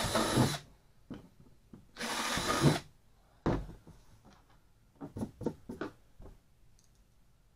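Cordless drill driving screws into the plastic rim of a kayak hatch in two short runs of about a second each, one at the start and one about two seconds in. A thump follows as the drill is set down, then a few light clicks and knocks of small parts being handled.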